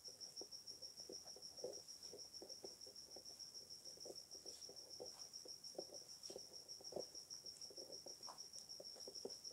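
Faint, steady, high-pitched cricket trill pulsing rapidly throughout. Under it, soft irregular rustling and scraping of a hand working flour and spinach paste together in a steel plate.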